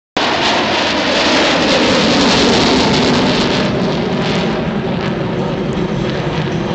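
Engine noise of a formation of three aircraft flying past: a loud, steady sound that eases slightly after about three and a half seconds as they move away.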